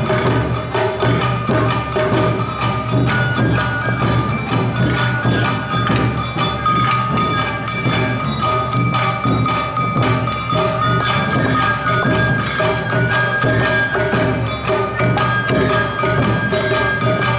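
Awa Odori narimono band playing: a kane hand gong and drums keep a fast steady beat with a sustained melody over it.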